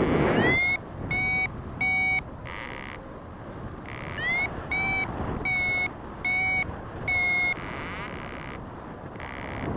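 Paragliding variometer beeping: short electronic tones, some sliding upward in pitch and others held steady, repeated about every 0.7 s with a pause of about two seconds between runs. This is the audible climb signal of a glider in rising air. Wind noise on the microphone runs underneath.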